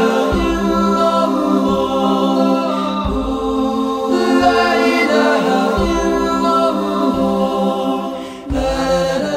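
Unaccompanied Islamic devotional singing (a nasheed): layered voices holding sustained chords with no instruments, briefly dropping away near the end before the next phrase.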